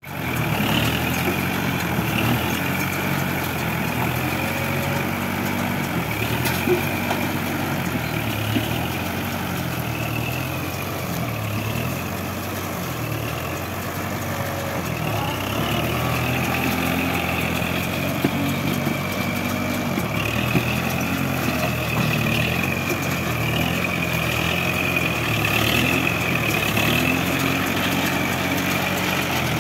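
Kubota MU4501 tractor's four-cylinder diesel engine running steadily under load while it drives a round baler baling rice straw, with a high wavering whine above the engine note and a few light knocks.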